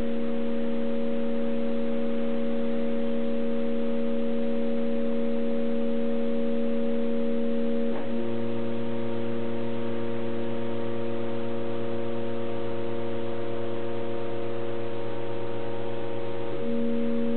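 Stepper motors driving the cross table of a home-built Proxxon CNC mill, giving a steady, multi-toned whine at constant feed. The pitch pattern changes abruptly about 8 seconds in and again near the end, as the table turns a corner of the rectangle and a different axis or direction takes over.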